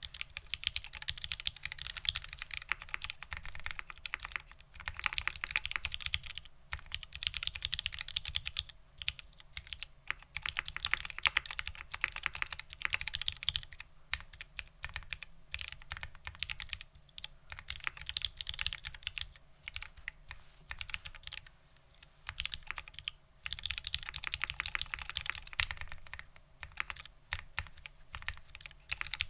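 Typing on a 60% mechanical keyboard with vintage Cherry MX Black linear switches, POM plate and ABS doubleshot keycaps: rapid runs of keystrokes in bursts of a few seconds, with brief pauses between them.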